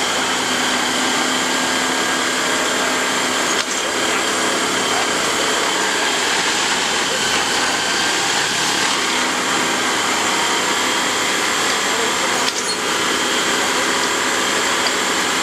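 Plasser & Theurer multiple tie tamper running its tamping demonstration: steady mechanical noise of the machine's engine and hydraulics, with a steady high whine. Two brief clicks come about four and twelve seconds in.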